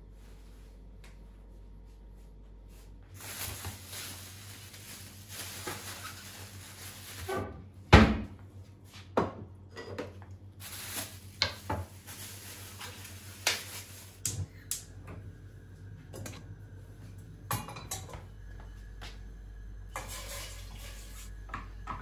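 Dishes and kitchen things being handled: scattered clinks and knocks, one much louder knock about eight seconds in, after a few seconds of hiss.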